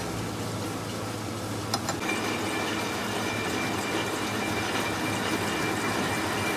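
Engine lathe running with a steady hum; about two seconds in there is a click and a steady high whine joins as the spindle turns a chequer-plate workpiece held in the four-jaw chuck.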